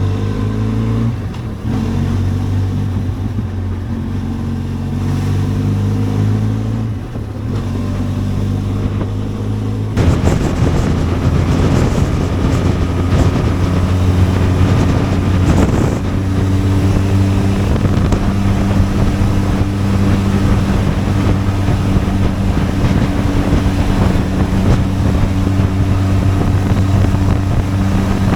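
Benelli TRK 502X's parallel-twin engine running steadily while riding, its pitch drifting a little with speed. About ten seconds in the sound changes abruptly and becomes louder and rougher.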